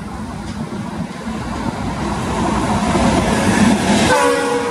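Twin WDM-3A diesel-electric locomotives approaching at speed, engine and rail noise building steadily louder. About four seconds in, a steady locomotive horn sounds as they pass.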